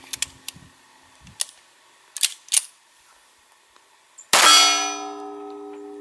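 A semi-automatic pistol fires a light reduced-powder handload about four seconds in, and the steel plate target rings out at once as the bullet strikes it, a long ringing clang that slowly fades. Before the shot come a couple of sharp clicks from handling the pistol.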